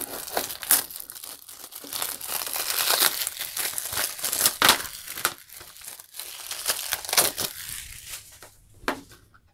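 Thin plastic shrink-wrap crinkling and tearing as it is pulled off a Blu-ray case, a dense crackle that thins out and stops shortly before the end.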